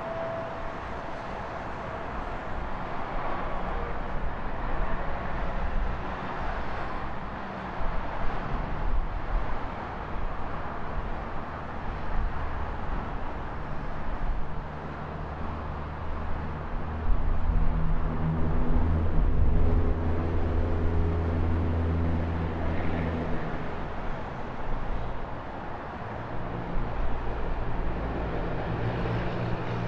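Steady road-traffic noise. A motor vehicle's engine runs low and loud from about sixteen seconds in for several seconds, then fades, with another engine rising near the end.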